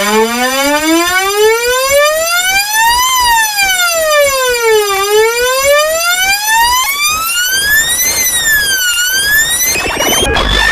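Emergency alert alarm siren: a buzzy wailing tone that starts abruptly, slides up for about three seconds, down for two, up again and down, and breaks into a harsh noisy burst near the end.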